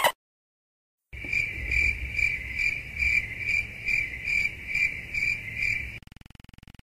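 Crickets chirping in a steady rhythm, about two chirps a second, starting about a second in and stopping shortly before the end.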